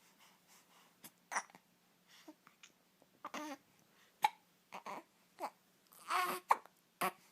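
A seven-week-old baby boy making a string of brief grunts and hiccups, about ten short sounds. The loudest is a sharp one about four seconds in, and a longer grunt comes about six seconds in.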